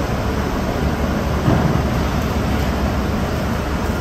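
Steady low rumble with an even hiss of background noise; no distinct knife strokes stand out.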